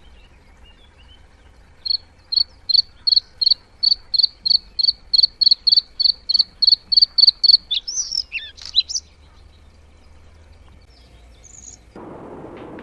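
A bird calling a long series of high, evenly repeated notes, about three a second for some six seconds, then a few varied, falling notes. Near the end a steady rushing background noise comes in.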